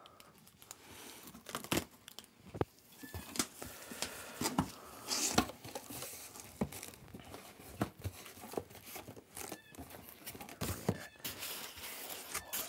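Packing tape being ripped off a cardboard box and the cardboard flaps pulled open, then plastic packing material and foam crinkling and rustling as hands dig into the box. Irregular sharp rips and crackles, the loudest rip about five seconds in.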